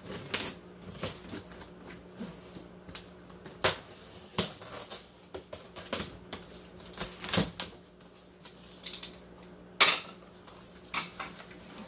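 A cardboard shipping box being worked open by hand: irregular clicks, scrapes and crinkles at its top flaps and tape, with one sharper click near the end.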